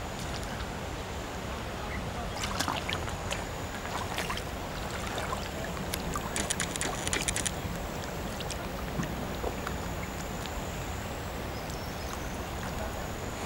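Sneakers splashing and sloshing through shallow river water as she wades, in short irregular splashes with each step, over a steady background rush.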